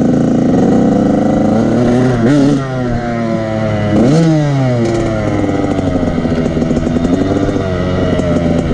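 Motorcycle engine running while being ridden, its revs rising and falling. The revs climb sharply twice, about two and four seconds in, then ease back.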